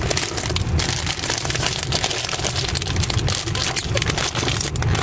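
Plastic snack bag crinkling and rustling as it is handled, over a steady low rumble of the car.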